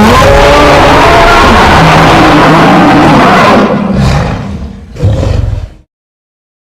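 Layered monster roar sound effect: a loud, wavering roar over a deep rumble for about three and a half seconds that trails off, then a shorter growl about five seconds in. It cuts to silence about a second before the end.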